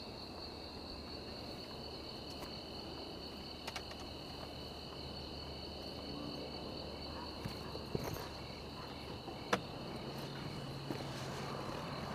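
Crickets chirring steadily at night, a continuous high-pitched trill, with a few faint clicks and taps, the sharpest about nine and a half seconds in.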